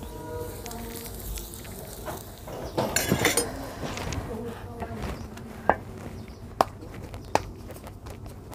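Steel kitchen utensils and plates clattering, loudest about three seconds in, then three single sharp clinks spaced roughly a second apart, over a faint steady background hum.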